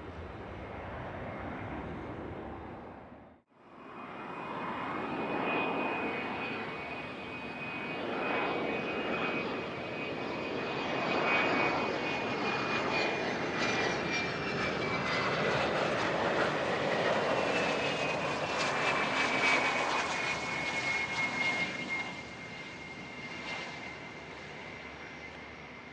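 A private jet passing, its engine noise swelling and fading. A high-pitched whine slides slowly down in pitch as it goes by.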